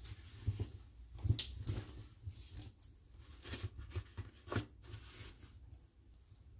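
Rustle and swish of a jacket being pulled on and shaken into place, with scattered soft thumps and rubbing of handling close to the microphone, loudest about a second in and again past the middle.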